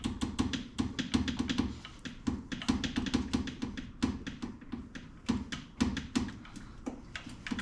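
A two-stroke dirt bike's metal exhaust pipe being shaken back and forth to work it out of the cylinder's tight exhaust flange: rapid, irregular clicking and knocking of metal on metal, several taps a second.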